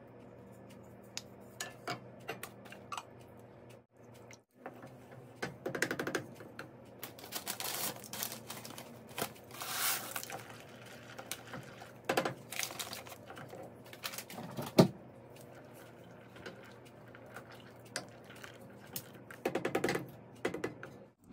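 Saucepan cooking sounds: scattered clicks and knocks, a few seconds of rustling in the middle third as dry pasta shells are poured from a packet into a stainless saucepan of milk, one sharp knock about two-thirds through, and a wooden spoon scraping and stirring in the pan near the end.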